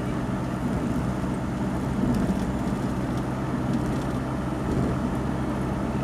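Engine hum and road noise of a moving road vehicle, heard on board while driving: a steady low drone with no changes in pace.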